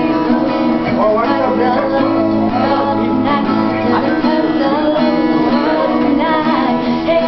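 Acoustic guitar playing sustained chords while a young woman sings along, her voice coming in about a second in.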